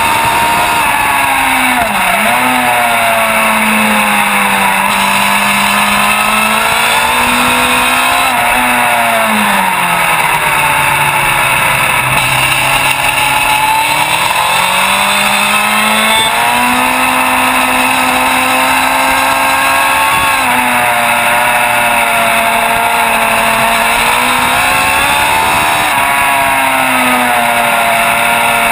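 Sport motorcycle engine running hard, recorded from a camera mounted on the bike, over steady wind rush. Its note holds high, dips briefly twice early on, falls to a low pitch around ten seconds in as the bike slows for a corner, then climbs back up and holds high again.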